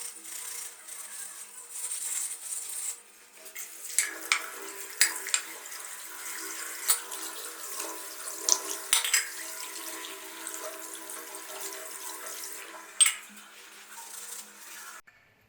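Running water with scattered clinks and knocks of hard objects being handled, cutting off suddenly near the end.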